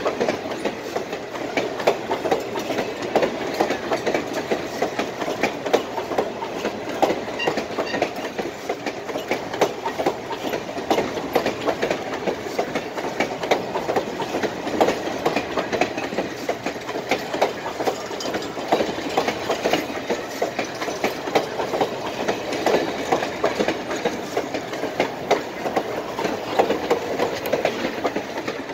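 Passenger coaches of a train rolling past, their steel wheels clicking over the rail joints in a dense, continuous clatter over a steady rumble.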